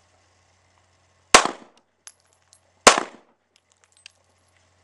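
Two pistol shots from a Springfield Armory XD, about a second and a half apart, each a sharp crack with a short ringing tail. These are the two chest shots of a two-to-the-chest, one-to-the-head drill.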